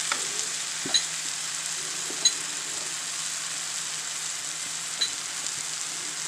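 Mashed boiled potato sizzling in hot oil in a frying pan over an onion-and-tomato base: a steady frying hiss with a few short sharp ticks.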